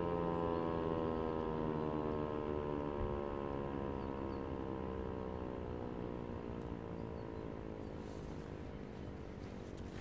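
Landert MSL-6 electromechanical civil-defence siren (11 kW) running down after switch-off at the end of its steady 'Warnung' warning tone. Several tones sound together and slowly fall in pitch as they fade.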